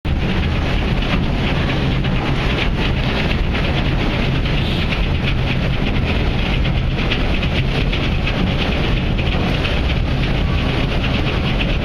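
Wind buffeting the microphone over the steady low rumble of a ferry under way.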